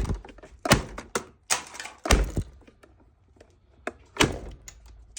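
Plastic lid of a Cuisinart coffee maker being shut with a series of thunks and knocks, about five in all, the heaviest about two seconds in.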